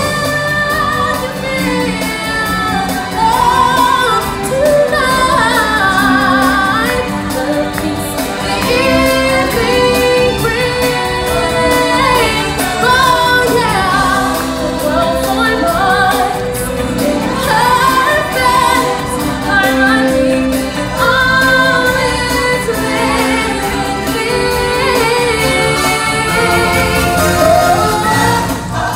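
Stage-show song: singers and a choir singing a melody over loud backing music.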